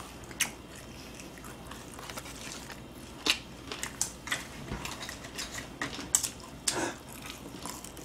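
Fried chicken drumsticks being bitten and chewed: scattered sharp crunches of the crispy coating over soft chewing.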